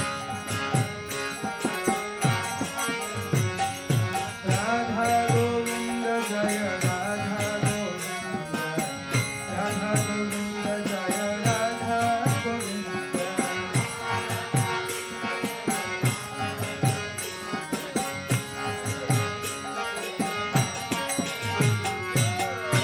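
Devotional chanting music: singing over a steady, regular hand-drum beat, with small cymbal-like clicks.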